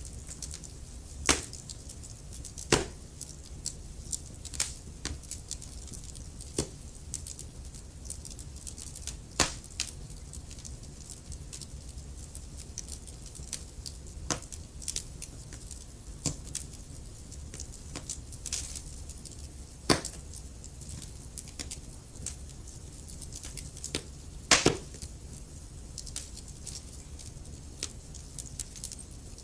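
Wood fire burning in a fireplace: irregular crackling of burning logs with a soft low rumble of flame, broken by a handful of sharper pops, the loudest about twenty-five seconds in.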